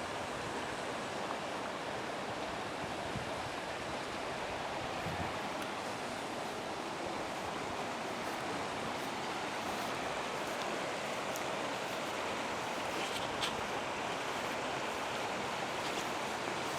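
River water rushing, a steady even hiss. A few faint ticks come in near the end.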